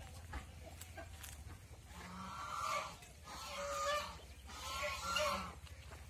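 Farm poultry calling: after a quieter start, three drawn-out calls about a second apart, each under a second long.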